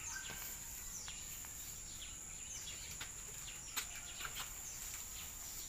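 Outdoor ambience: small birds chirping in short falling calls, repeated every half second or so over a steady high-pitched hum. A single sharp click about four seconds in.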